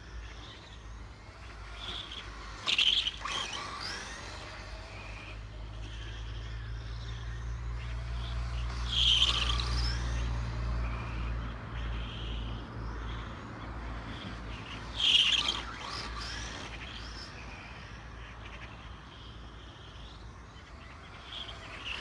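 A loud squeak that comes again about every six seconds, over a low hum that swells in the middle.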